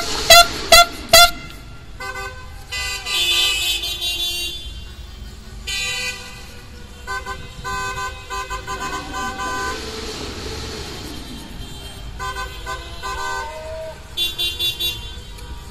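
Car horns honking in celebration: several cars sounding quick repeated toots and longer held blasts, overlapping in different pitches. A car passes about ten seconds in, and a few more short toots come near the end.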